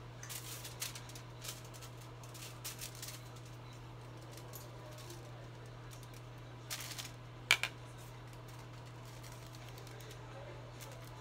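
Hair-foiling handling sounds: soft clicks and rustles of a comb working through hair in the first few seconds, then a sheet of aluminium foil crinkling about two-thirds through, followed by two sharp clicks, over a steady low hum.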